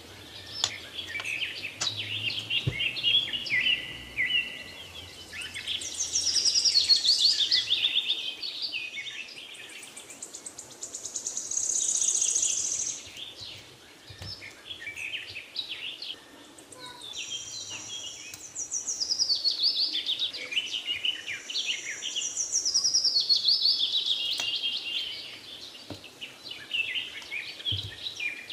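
Birds chirping and singing in overlapping waves, with rapid high chirps and repeated falling trills that swell and fade every few seconds.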